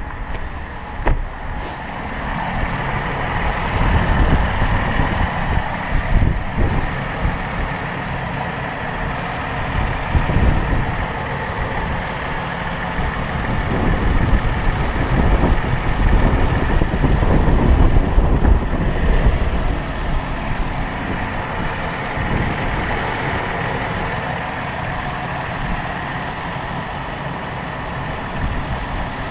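A 3.6-litre Pentastar V6 engine idling with the hood open, run after a thermostat replacement to circulate and check the coolant. Wind gusts buffet the microphone, and there is a single knock about a second in.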